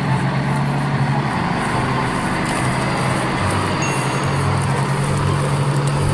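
Steady, even rumble of a large truck engine running.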